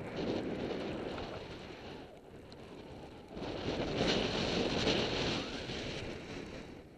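Snowboard sliding through deep powder snow, a rushing noise mixed with wind on the microphone, louder for about two seconds past the middle.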